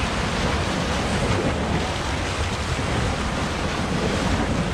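Steady wash of sea waves, with wind rumbling on the microphone.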